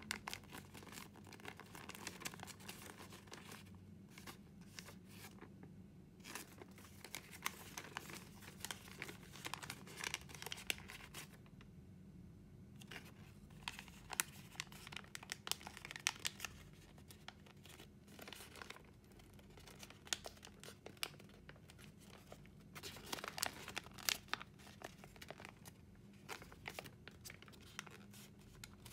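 Origami paper crinkling and rustling under the fingers as it is folded and creased, in irregular runs of small crackles with short pauses between them.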